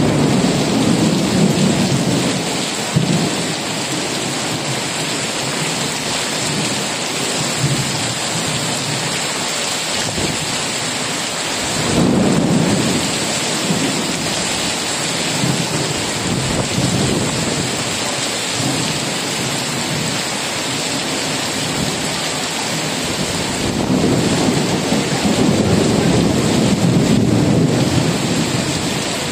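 Heavy tropical downpour hissing steadily on the street and surfaces, with low rolls of thunder rumbling under it at the start, again about twelve seconds in, and longer near the end.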